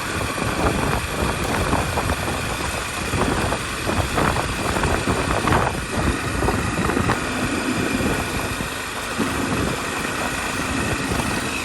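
Motorcycle running while riding on a gravel road: steady engine and road noise with wind on the microphone and scattered clicks from loose stones.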